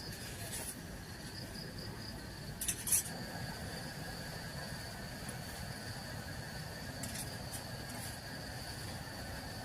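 Insects calling in steady, unbroken high-pitched drones over a low background rumble, with a few short clicks or knocks; the sharpest comes about three seconds in.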